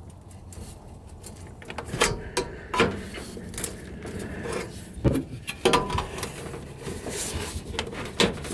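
Hand sheet-metal crimper squeezing the end of a galvanized steel duct pipe, giving a series of irregular sharp metallic clicks and clacks, with sheet-metal duct parts rubbing and knocking as they are handled and fitted together.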